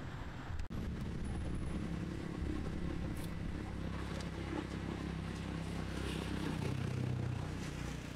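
A motor engine running with a steady low drone. The sound cuts out for a split second just under a second in, then the drone carries on.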